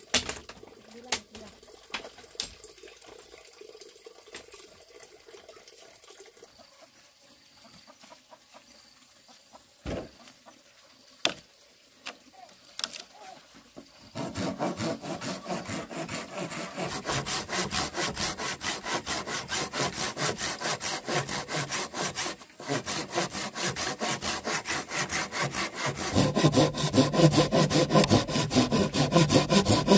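A few light knocks, then from about halfway a handsaw cutting wood with quick, even back-and-forth strokes, breaking off briefly and getting louder near the end.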